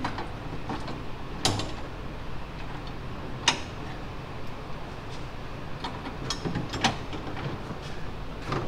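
Scattered sharp metallic clinks and knocks of hand tools and steel parts being handled under a car, the clearest about one and a half and three and a half seconds in, over a steady low hum.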